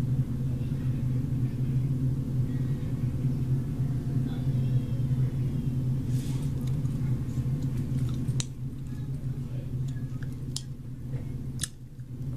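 A steady low hum that drops somewhat about eight and a half seconds in, with three sharp clicks in the second half.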